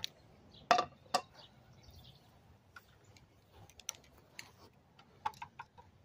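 Two sharp metallic clanks with a short ring, about a second in, as a small metal plant stand with a round tray top is set down on the ground, followed by faint scattered ticks.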